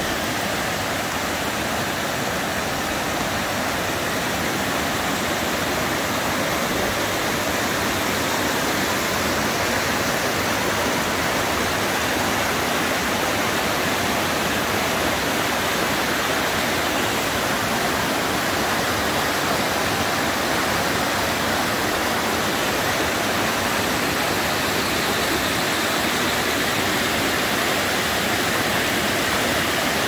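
Small waterfall: water rushing and splashing steadily down a sloping rock slab, a constant even roar of white water.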